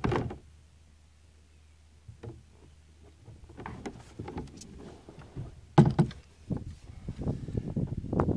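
Knocks and clatter from handling gear aboard a small fishing boat: a loud thump at the start, scattered clicks from about three and a half seconds, and a sharp knock about six seconds in. Wind rumbles on the microphone over the last second or so.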